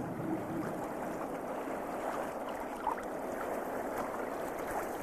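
Steady rush of water with a few faint clicks and one short blip about three seconds in.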